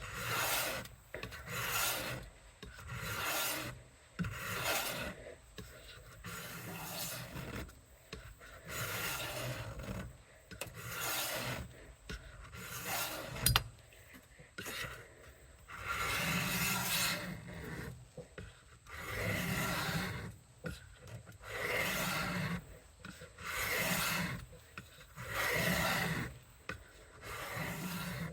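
A Victorinox stainless kitchen knife edge being drawn across a wet diamond sharpening stone on a Work Sharp guided sharpener: a steady series of gritty rasping strokes, about one every one and a half seconds. A single sharp click is heard about halfway through.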